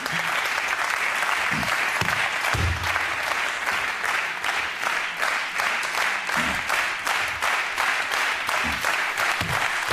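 Studio audience applauding steadily, with a few dull low thumps underneath.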